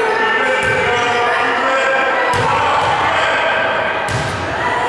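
A basketball thudding on a hardwood gym floor a few times, with one sharper knock about four seconds in. Voices of players and spectators echo through the gymnasium.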